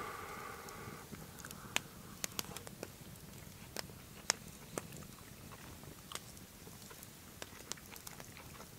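A man chewing batter-fried fish, with faint mouth sounds and scattered small crunchy clicks.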